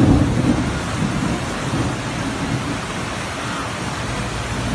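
Steady rush of heavy rain and fast-flowing floodwater, with a low rumble in the first half second.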